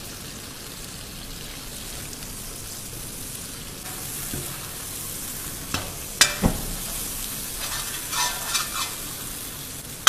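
Prawn and coconut-milk curry sizzling in a pan while a metal ladle stirs it, with a few sharp knocks of the ladle against the pan about six seconds in and some light scraping and clatter near the end.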